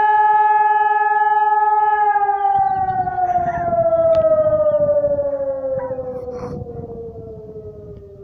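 ECI600 siren sounding the fire alarm signal, heard from a distance. A steady tone is held for about two seconds, then slowly falls in pitch and fades as the siren winds down at the end of a blast.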